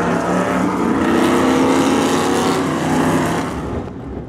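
Open-wheel historic race car's engine running hard at high revs as the car passes at speed. The sound falls away near the end.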